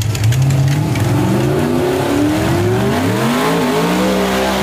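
Fox-body Mustang drag car's engine revving through a burnout: the pitch climbs over about three seconds, then holds at high revs.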